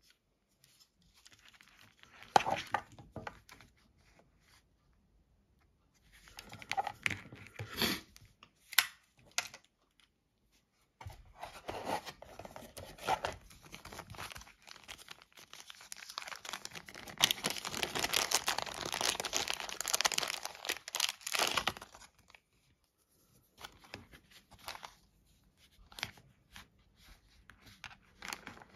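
Hands handling small plastic items: scattered clicks and rustles, then a small clear plastic zip bag crinkling steadily for several seconds in the middle, the loudest part, before a few faint clicks near the end.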